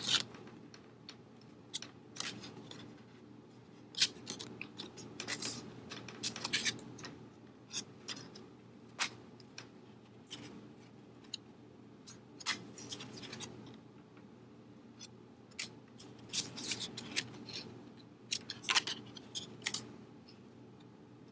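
Stiff printed paper cards being flipped through and slid over one another by hand: scattered crisp rustles and light taps at an irregular pace.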